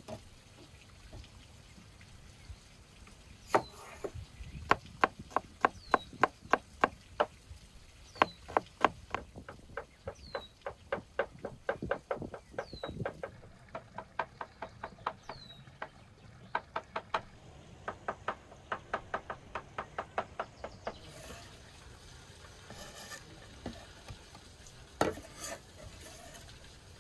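Cleaver chopping onion on a wooden cutting board: a long run of steady knocks, about three to four a second, that stops about three-quarters of the way through. A few scattered knocks follow as the chopped onion is swept off the board.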